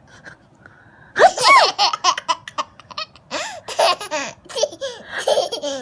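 High-pitched laughter in breathy bursts and squeals, starting about a second in after a quiet moment.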